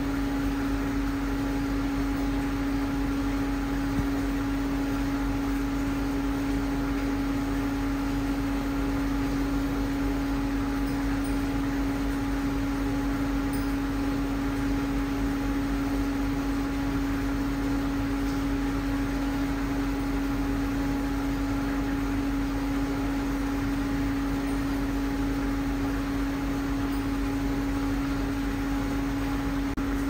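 Induction melting furnace running steadily while heating its metal charge: a constant hum at one pitch over steady noise.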